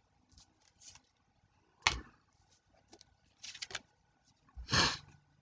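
Baseball cards being handled: a few short scrapes and taps as cards are slid off the stack and set down, the sharpest about two seconds in, with a longer rustle near the end.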